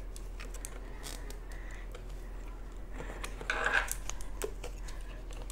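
Fingers mixing cooked rice on a steel plate: soft squishing and small clicks, with a slightly louder moment about three and a half seconds in.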